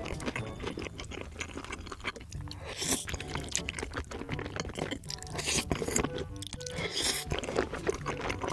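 Close-miked eating: crisp crunching and chewing of food, over a background music track with a steady beat.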